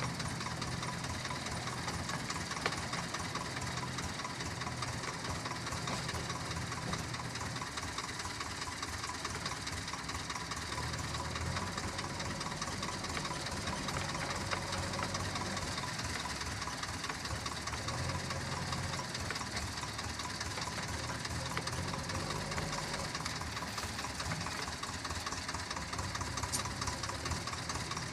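JCB 3DX backhoe loader's diesel engine running steadily under working load; its low hum shifts in pitch a few times, about a third of the way in and again past the middle.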